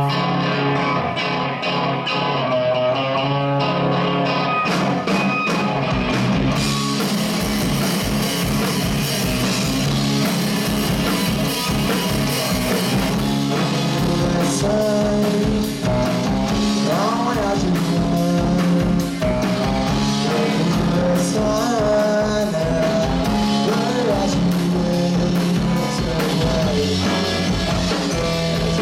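Live rock band playing through an amplified PA. Electric guitar opens alone, then drums come in about four to six seconds in, cymbals and all, and the full band of guitar, bass and drums plays on.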